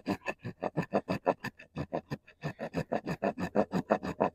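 Saw teeth of a Takumitak Solution D2-steel fixed-blade knife sawing back and forth into a hard wooden stick. It makes a quick rasping rhythm of about five strokes a second, with a short pause about two seconds in.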